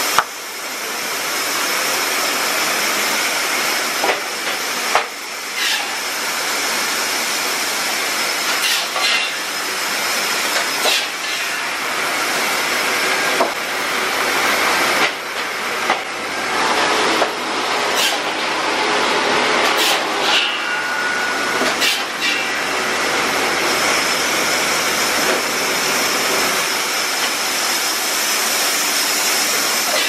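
Sawmill machinery running: a loud, steady hissing din with a faint high whine, broken by scattered sharp knocks and clatters.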